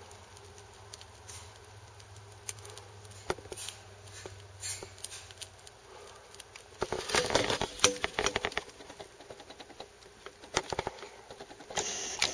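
Light scattered clicks and scratching in a small terrarium, bunching into a dense run of sharp crackling clicks about seven seconds in and again near the end.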